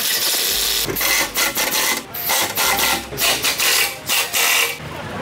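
Pneumatic impact wrench hammering, in about five short bursts, as it runs down and tightens the bolts joining a new exhaust pipe section to the muffler flange.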